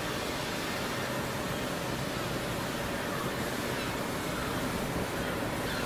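A Class 60 diesel locomotive's engine running as it slowly draws a train of tank wagons forward: a steady hum with a low drone.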